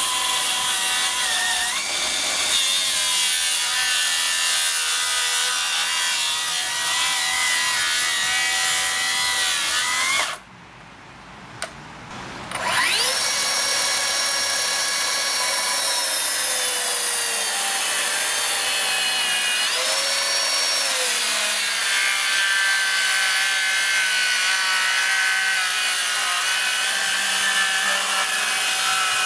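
Cordless plunge track saws cutting into a timber beam. A Milwaukee M18 Fuel track saw runs under load through the first ten seconds. After a brief pause, a Metabo KT 18 LTX 66 BL brushless track saw spins up with a sharply rising whine and cuts on, its pitch sagging as it takes load.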